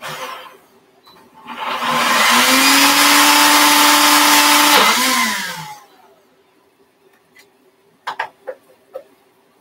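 Countertop blender churning a thick green-plantain and water mix: a brief pulse, then the motor winds up, runs steadily for about four seconds and winds down. A few sharp clicks follow near the end.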